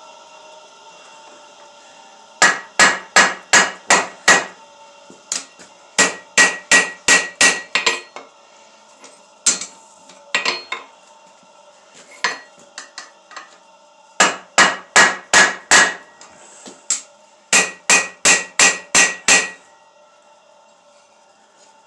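Blacksmith's hand hammer striking steel on an anvil during hand forging, in four runs of quick, even blows about three a second, with a few single strikes between them and the anvil ringing.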